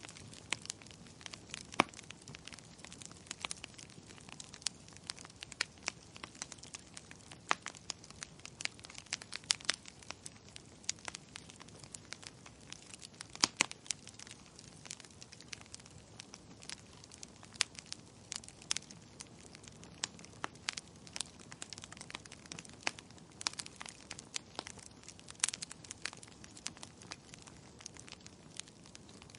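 Wood fire crackling steadily in a fireplace: irregular sharp pops and snaps of burning logs, several a second, over a soft hiss.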